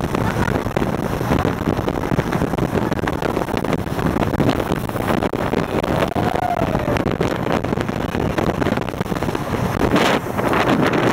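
Heavy wind buffeting on the microphone of a RIB running fast, over the boat's engine and water rushing past the hull. A few knocks come near the end.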